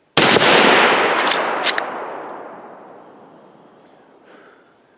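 A single rifle shot from a sporterized Lee-Enfield bolt-action rifle, its report echoing and rolling away over about three seconds. A few sharp clicks come about a second into the echo.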